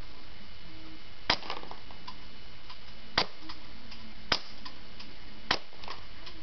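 Crosman C11 CO2 airsoft pistol firing four single shots, spaced unevenly about one to two seconds apart, each a sharp crack followed by a few fainter ticks.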